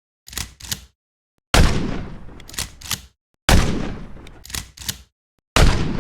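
Gunshot sound effect: two quick clicks, then three loud shots about two seconds apart, each trailing off in an echo and followed by a pair of sharp mechanical clicks.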